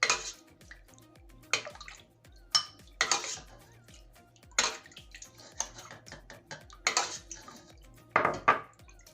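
A spoon clinking and scraping against a bowl in short irregular strokes as set yogurt is stirred into a little milk.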